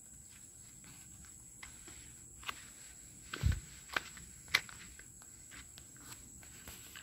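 Quiet open-field ambience with a steady high-pitched whine, broken by a few sharp clicks and a soft thump about three and a half seconds in.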